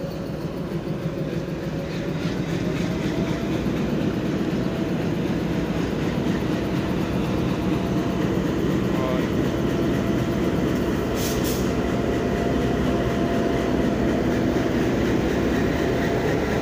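Indian Railways WDG-3A (ALCO-type) diesel locomotive passing close and slow at the head of a goods train, its engine running steadily over the rumble of wheels on the rails. It grows louder over the first few seconds as it draws alongside. There is a short hiss about eleven seconds in.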